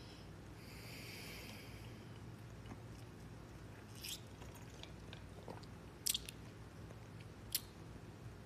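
Quiet mouth sounds of sipping an iced drink through a straw. A few sharp clicks stand out: one about four seconds in, a pair around six seconds, and one more near the end.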